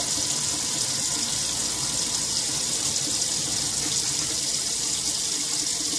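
Kitchen faucet running a steady stream of water into a sink.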